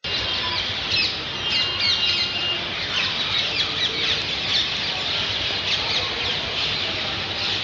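Many birds chirping at once: a dense chorus of short, high, falling chirps that overlap throughout.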